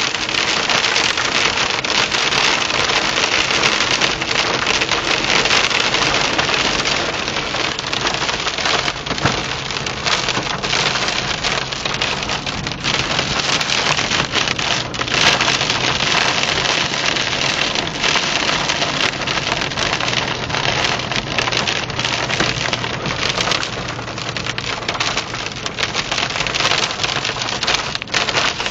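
Hail and heavy rain pelting a car's roof and windshield, heard from inside the car: a dense, steady clatter with many sharper individual hits.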